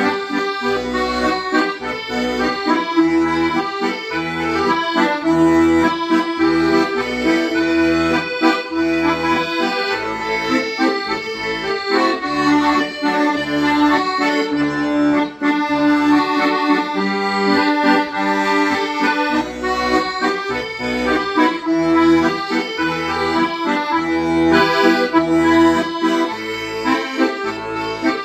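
Accordion playing a melody in long held notes over a regular, pulsing bass accompaniment.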